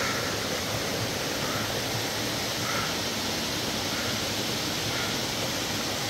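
Small forest waterfall and its stream of water rushing over rocks, a steady even hiss.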